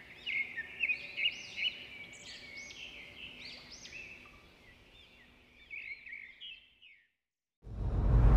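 Birds chirping and twittering in quick, arched high notes, thinning out and stopping about seven seconds in. A loud sound, the start of music, comes in near the end.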